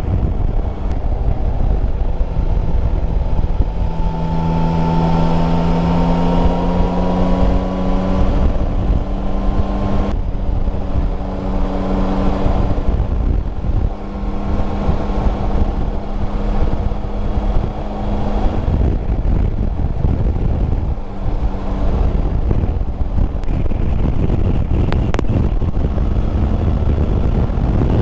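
Yamaha Tracer 9 GT's three-cylinder engine at a steady road cruise, under heavy wind and road rumble. The engine note climbs slowly for a few seconds, then holds steady, easing briefly about twenty-one seconds in.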